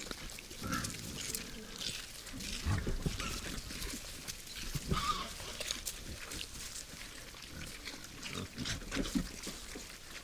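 Wild boars grunting irregularly while feeding, with scattered clicks and rustling.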